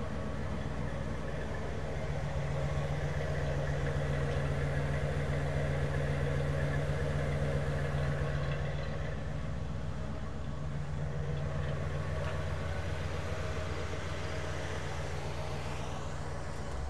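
A 1974 Mercury Colony Park's 460 four-barrel big-block V8 idling steadily through its dual exhaust.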